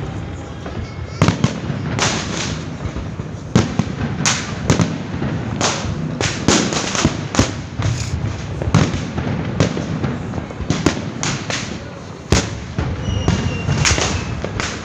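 Fireworks going off nonstop: many sharp bangs and crackles at irregular intervals, several a second, overlapping over a continuous low din of more distant explosions.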